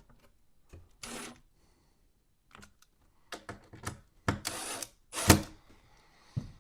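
Power drill driving the screws of a smoke detector's mounting plate tight in two short bursts, about a second in and again after four seconds. Light clicks come between the bursts, and a sharp knock a little after five seconds is the loudest sound.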